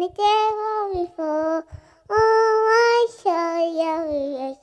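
A young female voice singing a song solo and unaccompanied, in held phrases with short pauses for breath between them.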